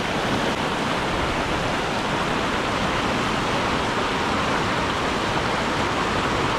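Steady rushing of a brook's flowing water, an even noise with no breaks.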